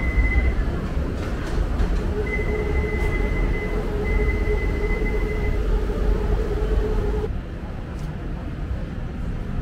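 Steady low mechanical rumble with a high steady whine that comes and goes and a lower steady whine that cuts off about seven seconds in.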